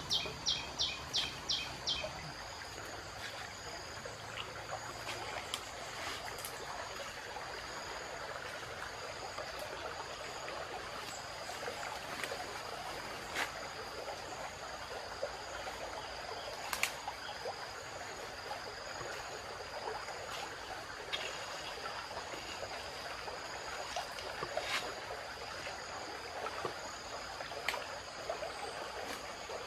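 Tropical forest ambience: a steady high insect drone over a constant background hiss, with a rapid run of about seven short high chirps in the first two seconds and scattered snaps and rustles of twigs and leaf litter.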